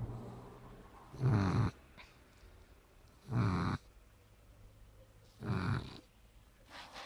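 Shar-pei dog snoring, one snore about every two seconds: three loud snores, then a fainter one near the end.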